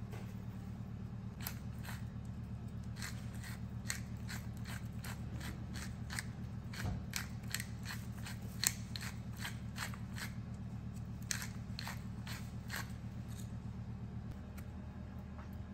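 A pepper mill being twisted, grinding peppercorns in a run of crisp, irregular clicks that stop a little before the end, over a steady low hum.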